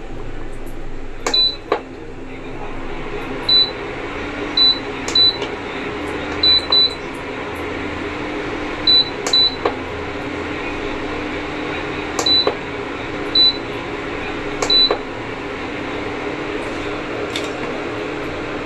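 Prestige induction cooker's control panel giving short, high beeps as its touch buttons are pressed, about a dozen times, spread irregularly through the first fifteen seconds: the repaired switch panel responding to each press. Under the beeps the cooker runs with a steady hum from its cooling fan.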